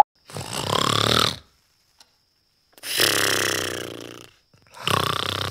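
Snoring: three long snores, each about a second to a second and a half, with short pauses between them.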